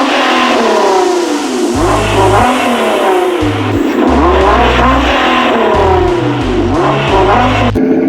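Sports-car engine sound effect revving up and down repeatedly, laid over electronic beat music with a heavy bass line. The engine sound cuts off shortly before the end, leaving the music.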